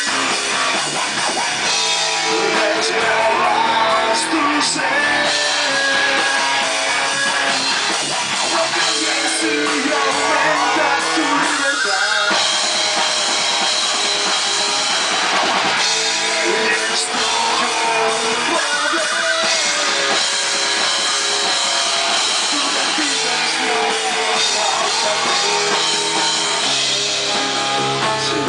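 Rock band playing: drum kit and guitar, loud and continuous, with some singing.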